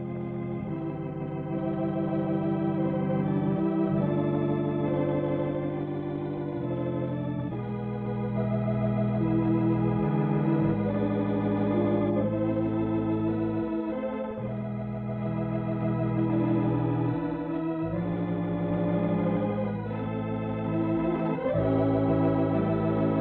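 Organ music playing the show's closing theme: held chords that change every second or two.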